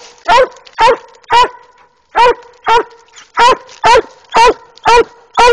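Walker coonhound barking treed, reared up against the tree trunk: a steady run of short, loud barks about two a second, with one brief pause about two seconds in. This is the hound's tree bark, the sign that it has game treed.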